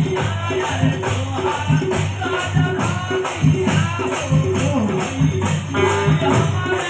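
Live Hindi devotional bhajan music: a singer's voice over a steady beat of drum hits and bright jingling percussion, with keyboard accompaniment.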